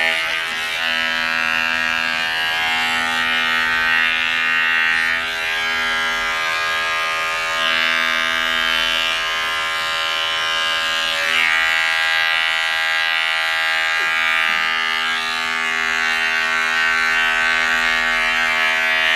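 Electric pet grooming clippers running with a steady hum as they shave matted fur off a puppy's belly and hind legs.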